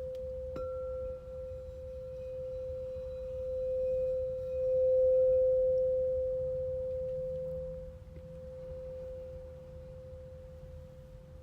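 Crystal singing bowl ringing one steady tone that swells in the middle and then slowly fades. A fainter, higher overtone joins after a light tap about half a second in.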